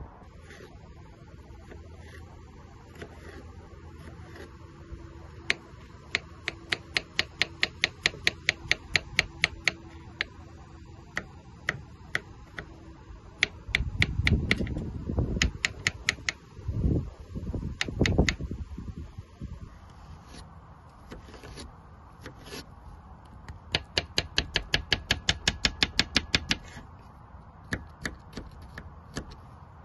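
Kitchen knife chopping cucumber on a wooden cutting board: runs of quick, sharp, even taps, about three to five a second, pausing for a few seconds of low rumble in the middle and picking up again near the end.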